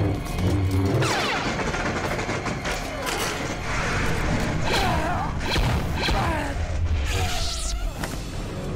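Lightsaber duel sound effects: blades humming and swinging in sweeping whooshes that rise and fall in pitch, with crackling clashes when they strike, over dramatic background music.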